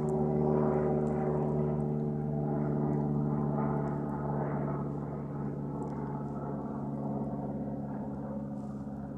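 Airplane drone: a steady hum of several held tones, slowly growing fainter.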